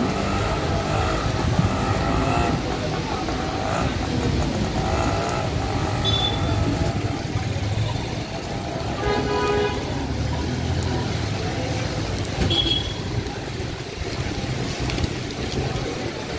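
Heavy rain hissing on a wet road with traffic passing through it. A vehicle horn sounds once, about nine seconds in, for about a second.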